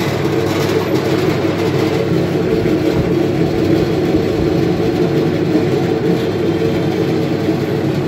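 Commercial potato peeler with a 1 HP copper-wound electric motor, running steadily with its drum empty: a constant mechanical hum.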